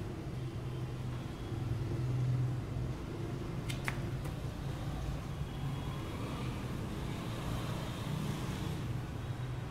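A steady low mechanical hum, with a single short sharp click just before four seconds in.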